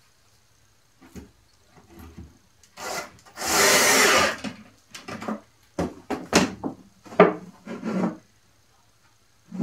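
Bar clamps being released and taken off a plywood panel. A loud scraping rub of about a second comes a few seconds in, followed by a string of sharp clicks and wooden knocks.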